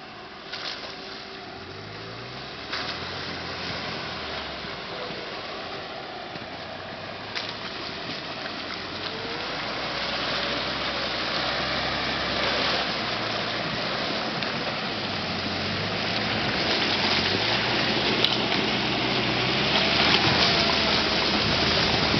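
SsangYong Kyron SUV engine pulling at low revs, rising and falling with the throttle as it crawls through a rut of wet snow and meltwater, with slush and water churning under the tyres. It grows steadily louder as it comes closer, with a few sharp knocks in the first few seconds.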